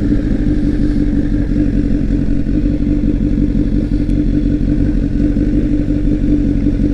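Honda CBR1000RR sportbike's inline-four engine running at a steady cruising speed while being ridden, its pitch holding constant, over a steady rush of riding noise.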